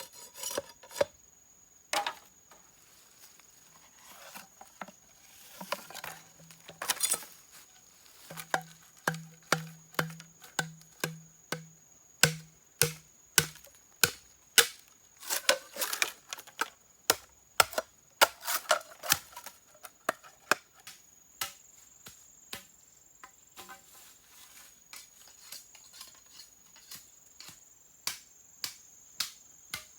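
Repeated sharp knocks on wood, about one to two a second, loudest in the middle and lighter near the end, over the steady high trill of insects.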